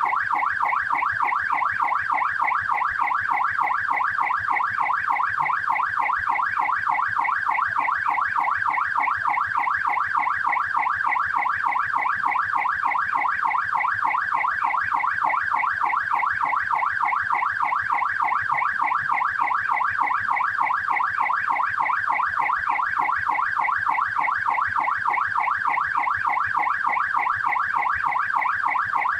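Australian police car siren on its yelp setting: a fast, steady up-and-down wail repeating several sweeps a second without a break.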